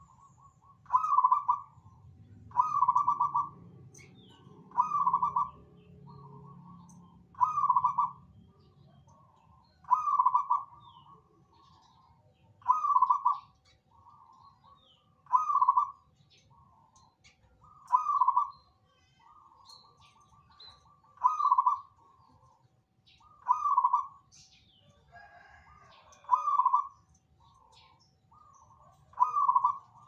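Zebra dove (perkutut) cooing its song over and over, one loud rippling phrase about every two and a half seconds, with fainter calls at the same pitch between the phrases and faint high chirps above.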